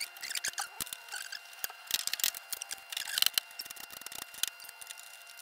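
Scattered clicks, clinks and light rattles of hand tools and metal parts being handled while engine components are unbolted, coming in short clusters with pauses between them.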